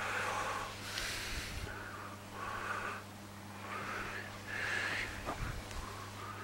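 Venturi pool vacuum, driven by a garden hose, sucking water and air as it is drawn over the pool floor. It makes short gurgling, slurping bursts about once a second over a steady low hum.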